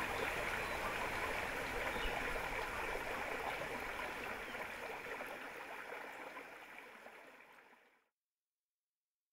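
Steady rush of running water, fading out over several seconds to silence about eight seconds in.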